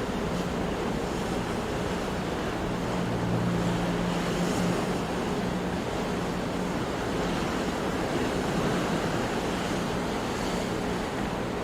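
Ocean surf washing steadily, gently swelling and easing without sharp crashes. A faint low steady hum runs under it and grows a little stronger a few seconds in.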